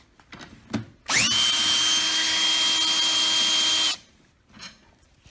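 Power drill with a socket bit backing out a screw from the seat's metal mechanism. It spins up with a quick rising whine, runs steadily for about three seconds, then stops suddenly. A few light clicks come before it.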